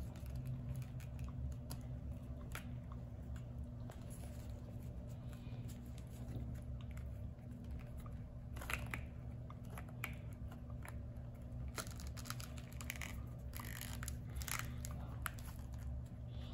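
Small plastic action-figure parts being handled and fitted by hand: scattered light clicks and rustles over a steady low hum.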